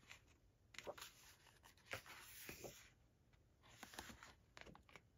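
Faint rustling and sliding of glossy paper as booklet pages are turned by hand, in a few short strokes.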